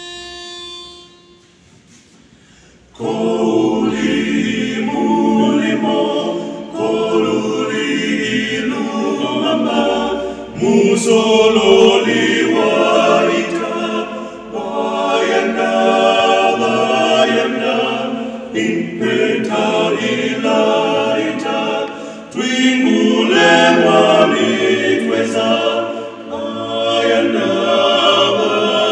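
A pitch pipe sounds one steady note until about a second in. About three seconds in, an all-male vocal quartet starts singing a cappella in close four-part harmony, and keeps singing to the end.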